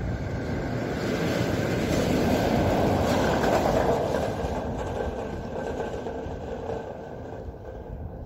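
Train rumbling past, swelling to its loudest about three to four seconds in and then easing off, with a steady high tone running through the rumble.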